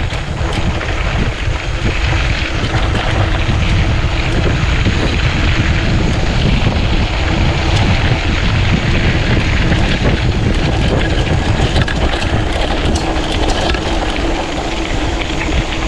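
Mountain bike rolling downhill on a dirt trail, with heavy wind noise on the microphone over the rumble of tyres on loose ground and scattered sharp clicks and rattles from the bike.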